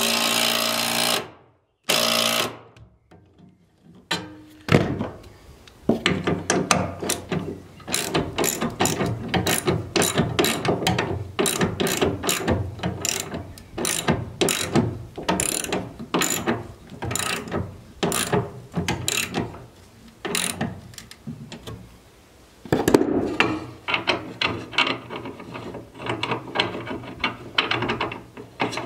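A cordless drill/driver runs for about a second, driving a screw into a steel hold-down bracket, with a short second burst just after. Then a socket ratchet clicks in short repeated strokes, tightening the nut on the anchor bolt, with a brief pause near the end.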